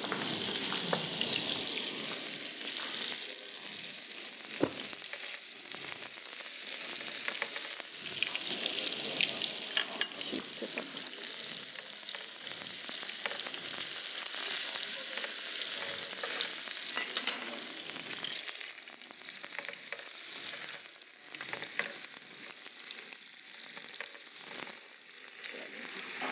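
Mutton-mince kababs sizzling in oil on a hot ridged grill pan over a gas flame, a steady frying hiss. Now and then the tongs click and scrape against the pan as the kababs are turned.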